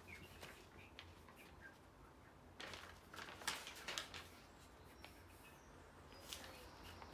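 Faint rustling of loose sheets of paper being handled and shaken, in short bursts a few seconds in and again briefly near the end.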